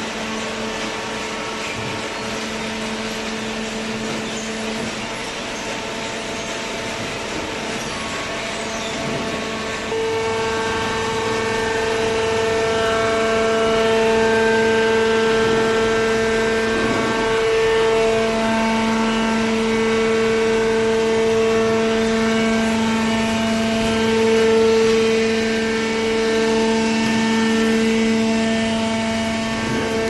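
Hydraulic paper baler's electric motor and hydraulic pump running with a steady pitched hum, louder and fuller from about ten seconds in.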